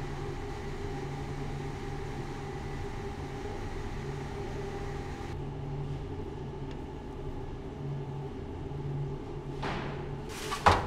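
Steady low hum of bakery machinery, with a few clatters near the end, the last a sharp, loud knock.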